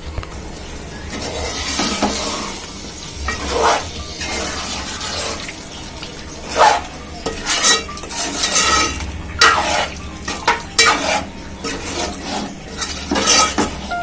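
Spoon stirring chicken into a frying onion-tomato masala in a pan: irregular clanks and scrapes against the pan over a steady sizzle.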